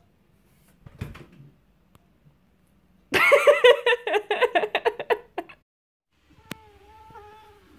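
A person giggling in a quick run of high-pitched bursts for about two seconds, after a single knock about a second earlier. Near the end comes a click and a faint, drawn-out wavering sound.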